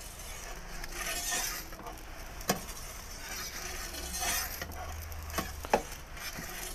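A metal pizza-turning peel scraping across the hot stone floor of a Gozney Dome oven and clinking against it as a pizza is turned, with a few sharp clicks, one about two and a half seconds in and two close together later.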